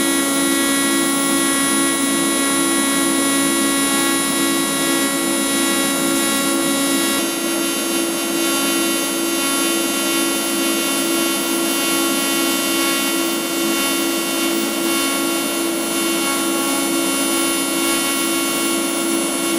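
TIG welding arc on stainless steel sheet: a steady, unbroken buzzing hum with a hiss over it.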